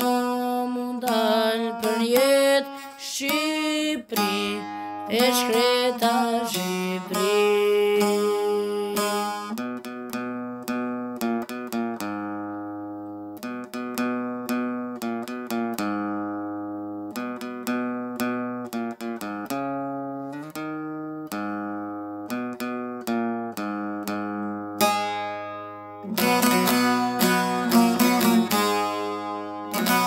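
A boy singing an Albanian folk elegy over a plucked string instrument. About nine seconds in, the voice drops out for a long instrumental passage of picked notes, and the singing comes back near the end.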